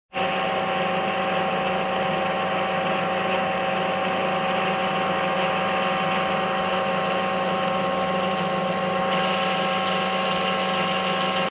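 Metal lathe running under power while the tool takes a turning cut on an aluminium bar: a steady machine whine made of several fixed tones from the spindle and gear drive.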